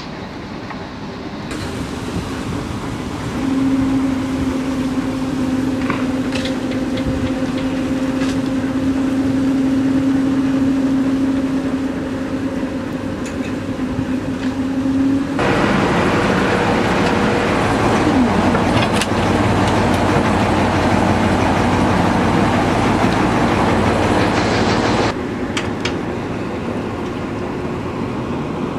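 Kromhout 3LSD marine engine of an old workboat running steadily, shortly after being started. It gets suddenly louder about halfway through and drops back abruptly near the end.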